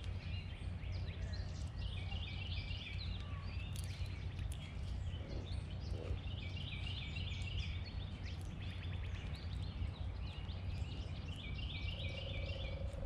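A songbird singing the same short phrase three times, a few seconds apart, over a steady low rumble of outdoor background noise, with scattered faint ticks.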